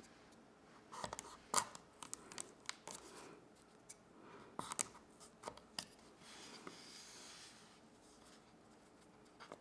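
A blade cutting into raw chestnut shells: a run of sharp, irregular clicks and crunches over several seconds, then a faint rustle near the end.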